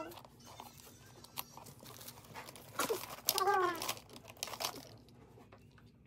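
Paper and tissue packaging rustling and crinkling, with a few light clicks, as a handbag is handled and lifted out of its gift box. A short voice sounds about halfway through, and the last second is almost quiet.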